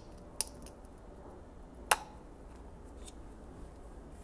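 Eggshell against hard plastic: eggs pricked on the pin of a plastic measuring cup and set into an egg cooker's tray. Two sharp clicks about a second and a half apart, with a few faint ticks between.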